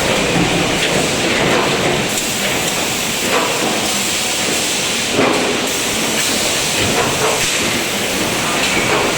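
Automatic multihead spot welding machine running: a steady loud mechanical noise with a few irregular clunks.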